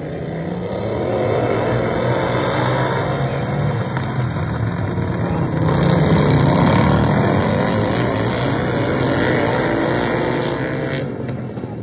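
Several racing lawn tractors' small engines running hard at full throttle, their pitch wavering. The sound grows louder as the pack passes close by about six seconds in, then eases off as they move away.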